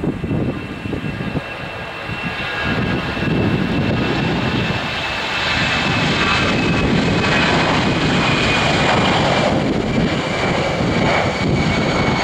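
Airbus A319's twin CFM56 turbofan engines at take-off power as the jet rolls down the runway. A low rumble carries a steady high whine that falls slightly in pitch; it swells about two seconds in and then stays loud.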